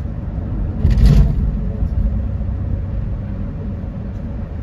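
Steady low rumble of a car driving at highway speed, its road and engine noise, with a brief louder burst of noise about a second in.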